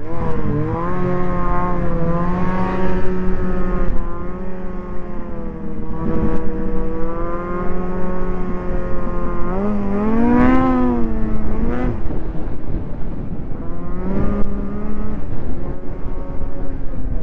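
Snowmobile engine running at speed, heard from the rider's helmet, holding a steady pitch, with a quick rev up and back down about ten seconds in and a shorter rise about fourteen seconds in.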